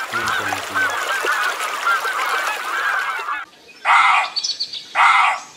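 A flock of domestic geese calling, many short honks overlapping into a steady chatter for about three seconds. After a brief lull come two louder, separate calls about a second apart near the end.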